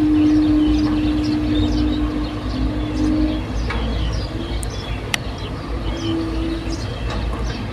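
Excavator's diesel engine and hydraulics running steadily, a low rumble under a constant whine whose pitch shifts slightly a couple of times, with birds chirping and a single sharp click about five seconds in.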